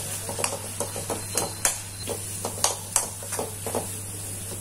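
Steel spoon mashing boiled potatoes into tomato masala in a metal kadhai: irregular clinks and knocks of spoon on pan, about three a second.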